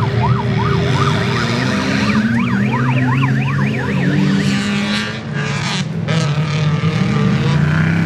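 Off-road race vehicles' engines running and rising and falling as they drive past on a dirt track. For the first four seconds or so a siren wails rapidly up and down over them, about three sweeps a second, then stops.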